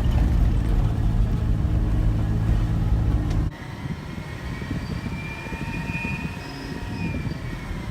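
A four-wheel-drive vehicle running on a track, a deep steady engine sound that cuts off abruptly about three and a half seconds in. A quieter stretch follows, with faint whistling tones.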